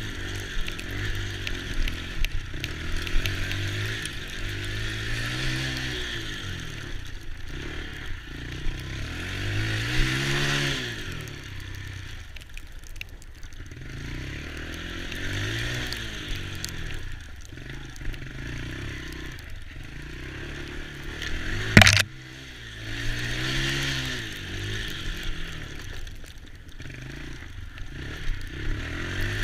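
Small youth ATV engines revving up and easing off again and again as the quads ride, with one sharp knock about two-thirds of the way through.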